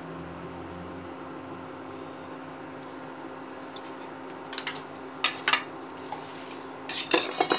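Steady hum of an induction cooktop heating oil in a nonstick wok. A few sharp clicks come in the second half, and a short burst of crackling follows near the end.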